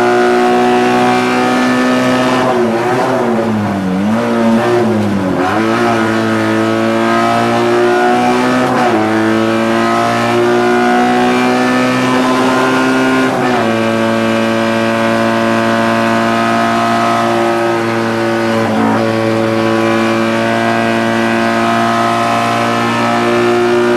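Fiat 126p race car's air-cooled two-cylinder engine held at high revs under load, heard from inside the cabin. The pitch wavers and dips a few seconds in, then climbs steadily, with several sudden drops as it shifts gear.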